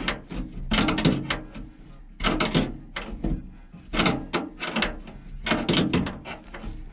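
Ratchet wrench tightening bolts: short rasping strokes, about one every second and a half.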